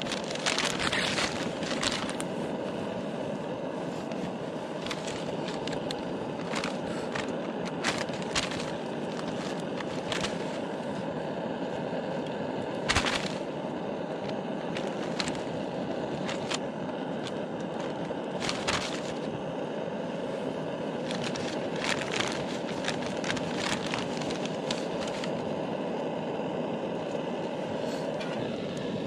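Campfire crackling, with scattered sharp pops over a steady rushing noise.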